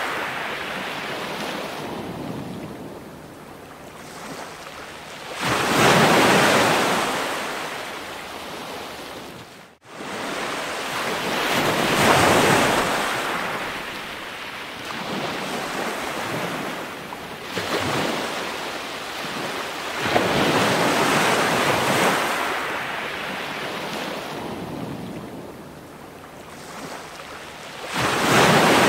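Ocean surf: waves washing in and drawing back, swelling and fading every few seconds, with a sudden brief dropout about ten seconds in.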